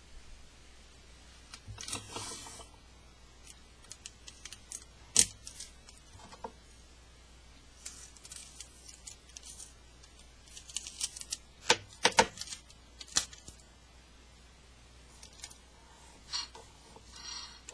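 Clear sticky tape pulled from a desk dispenser, torn off and handled, in a string of short crinkles, rasps and clicks, with a few sharp snaps. Near the end the tape is smoothed onto an iPod's glass screen.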